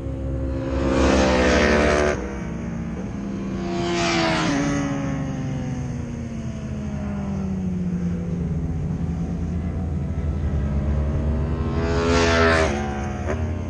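Racing motorcycles going past on the circuit, heard from the gravel run-off. Loud passes come about a second in, around four seconds in and near the end, each rising and falling in pitch. Between them one engine's note falls slowly, and a steady low rumble runs underneath.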